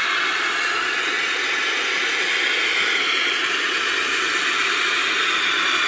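Water from a garden hose spray nozzle pouring into an empty inflatable hot tub as it is being filled, a steady hiss.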